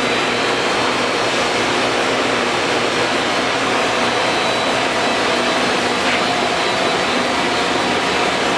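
Steady, loud running noise of industrial machinery and equipment in a machine shop, an even hiss and hum with a faint high whine.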